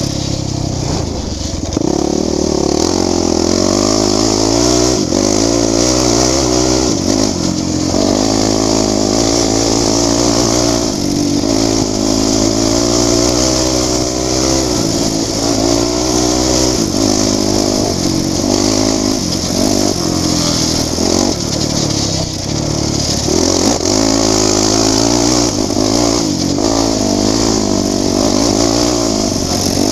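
Enduro motorcycle engine pulling hard along a dirt trail, its pitch rising and falling again and again as the rider speeds up, shifts and backs off, over a steady high hiss.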